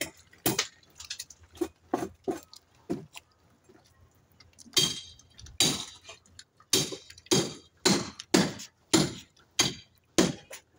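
Footsteps on wooden dock planks: a run of sharp knocks, falling into a steady walking pace of about two steps a second in the second half.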